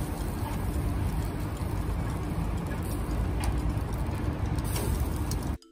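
Live sound at a charcoal grill: a steady low rumble with a hiss above it, with no music. It cuts off suddenly near the end.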